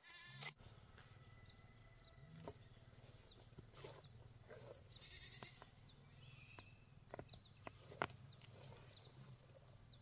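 Pigs calling, one pitched call just after the start, over a faint steady low hum. A few sharp knocks, the loudest about eight seconds in, and faint short bird chirps come through.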